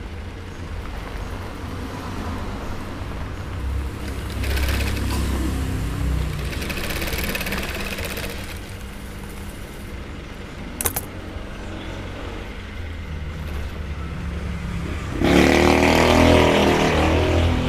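Industrial sewing machine stitching a cowhide leather jacket in short runs, its under-table motor humming steadily. There is a single sharp click about eleven seconds in, and a louder, engine-like run near the end.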